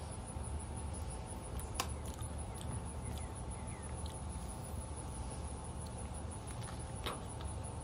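Eating sounds from a mouthful of soft soursop pulp: two sharp mouth clicks, about two seconds in and again near the end, over a steady low rumble of wind on the microphone.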